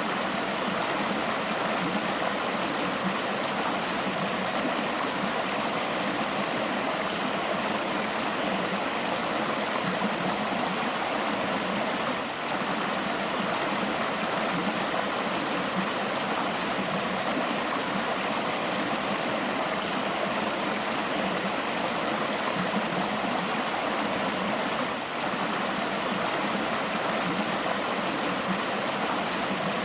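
River water flowing, a steady even sound of running water that dips slightly for a moment twice.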